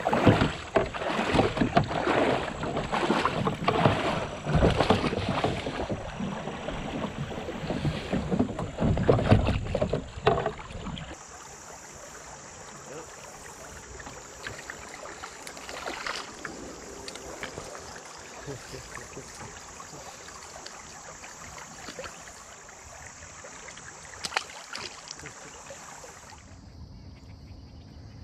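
Kayak being paddled, with paddle splashes, knocks on the hull and wind on the microphone. After about eleven seconds this gives way to a steady, high insect chorus of crickets, which shifts lower in pitch near the end.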